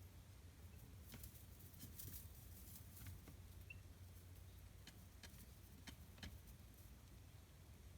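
Faint, scattered taps and scratches of chicks pecking and scratching at their bedding, over a low steady hum, with one faint peep a little past halfway.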